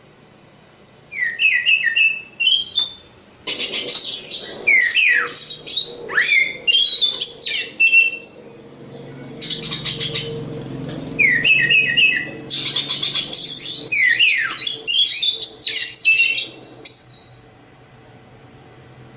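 Oriental magpie-robin (kacer) singing a varied song of rapid whistled notes, downward-slurred whistles and harsh buzzy rattles. It stops a couple of seconds before the end.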